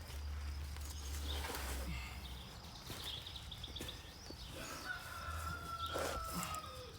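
A rooster crowing once, one long drawn-out call starting about five seconds in. A low rumble runs through the first couple of seconds.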